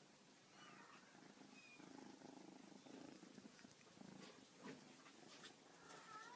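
Faint purring of Bengal kittens, with a few thin, high kitten mews near the start and end and a single sharp tap about two thirds of the way through.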